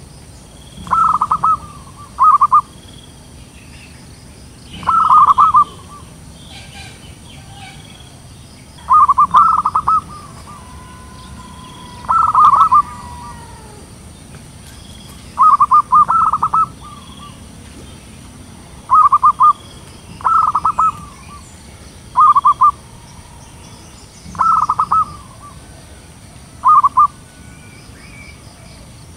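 Zebra dove song: about eleven short phrases of rapid, staccato trilling coos, each under a second long, repeated every one to four seconds.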